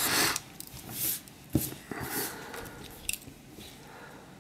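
Handling of a Victorinox Huntsman Swiss Army knife: soft rustling and small clicks as its tools are folded and moved. There is one sharp click about a second and a half in.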